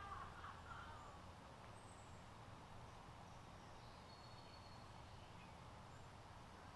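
Near silence: faint outdoor ambience with a low hum, and a few faint bird calls, among them a thin high whistle held for about a second a little past the middle.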